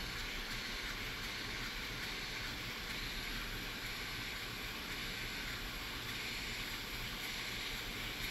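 Brass model oscillating engine running on compressed air, ticking over about as slowly as it will keep running, with a steady hiss of air through its valve and exhaust.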